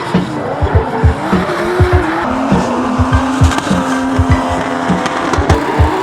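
Drift car engine revving hard with tyres squealing through a slide, over a music track with a steady drum beat.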